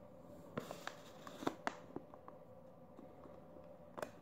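Faint scattered clicks and light paper rustling as a crayon is pressed against paper to crease an indent, with a few sharper taps.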